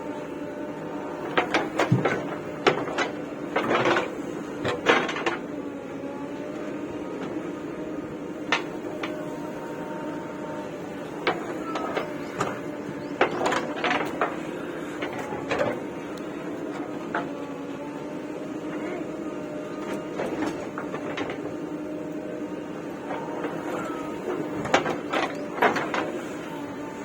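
Backhoe loader working: a steady engine hum under clusters of sharp clanks and knocks that come and go.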